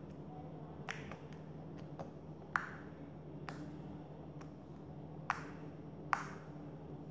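Homemade slime being pressed and poked with the fingertips, giving off irregular sharp little pops and clicks, about eight of them, the loudest about two and a half, five and six seconds in.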